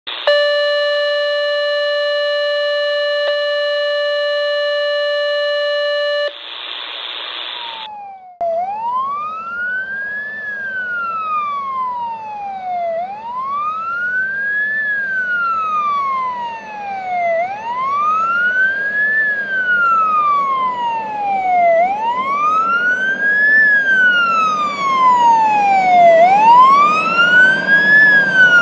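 A steady held tone for about six seconds and a short burst of hiss, then a fire engine's siren on a slow wail, rising and falling about once every four and a half seconds, with a second higher wail out of step with it. Under it the truck's engine rumbles, and both grow louder as the engine approaches.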